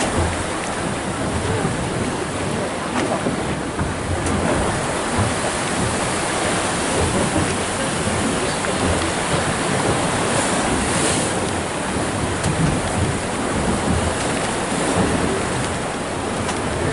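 Wind buffeting the microphone over the wash of sea waves: a steady, dense hiss with gusty low rumbling.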